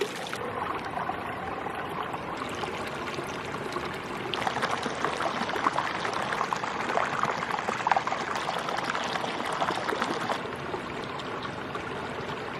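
Hot spring water flowing down from one pool into the next: a steady trickling, pouring rush that gets louder for several seconds in the middle.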